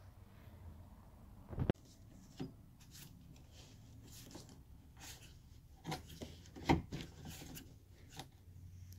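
Hands working a car door's window glass and frame: scattered rubbing, light clicks and knocks, with a sharp knock just under two seconds in and another a little before seven seconds.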